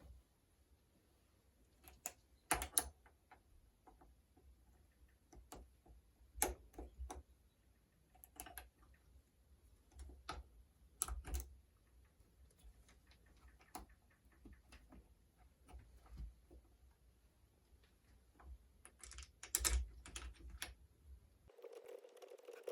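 Faint, irregular clicks and light metallic taps from a socket wrench and the clutch lever's bolt and lock nut being worked loose and handled, with a few louder knocks spread through.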